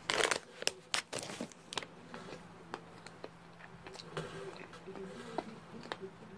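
Plastic candy bag crinkling for about the first second and a half, then soft chewing of a gummy sour worm with small scattered mouth clicks.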